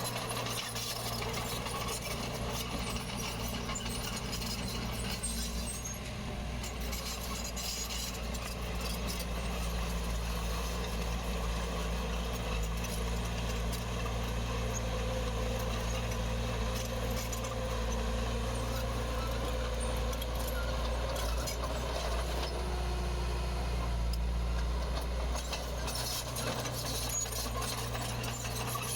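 Heavy diesel construction machinery running steadily under load, a low engine drone with scattered metallic clicks and scrapes over it.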